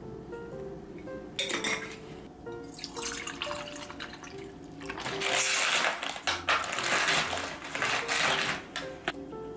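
Water running in the kitchen, loudest over several seconds in the second half, with light clinks of dishes.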